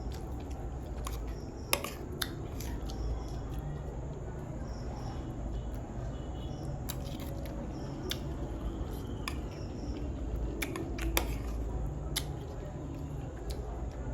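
A person eating a meal of rice and soup: quiet mouth and eating sounds, broken by a handful of sharp clicks, over a steady low hum.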